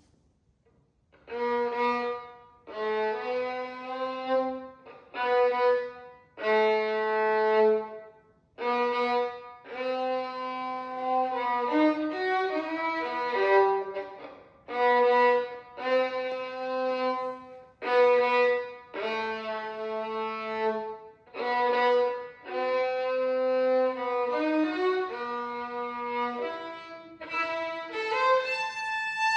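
Solo violin playing a melody in short phrases, often sounding two notes at once, starting about a second in.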